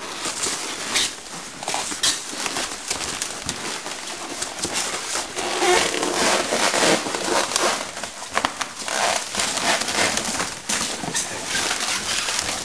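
Packaging being unwrapped and pulled off by hand: a dense, continuous crackling and rustling with many sharp crinkles.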